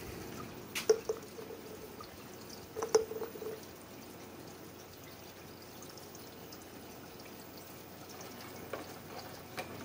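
An opened, empty aluminium beer can is knocked and handled twice, each knock with a short metallic ring, and later set down with a couple of light ticks. Under it runs a faint, steady trickle of water from the hydroponic system's pipes.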